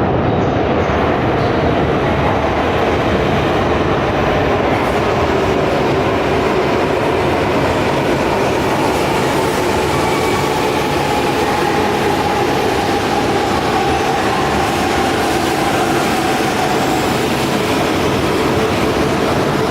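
Shinkansen train moving through an underground station platform: a loud, steady rumble of wheels and running gear with a faint whine held underneath.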